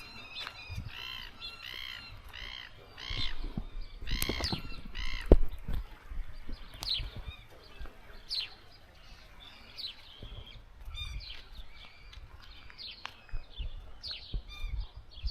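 Birds calling: a quick series of repeated arched calls in the first four seconds or so, then scattered short sharp chirps. A single sharp knock comes about five seconds in.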